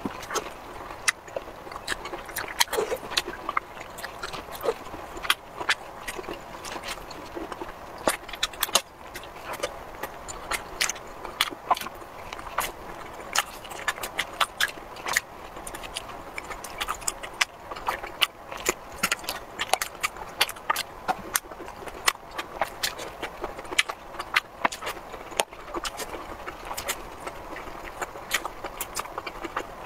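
A person eating, with a close, crisp run of crunching and smacking clicks from biting and chewing food such as broccoli florets and purple rice balls, several clicks a second.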